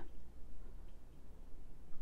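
Quiet room tone in a pause between spoken sentences, with a faint steady low hum.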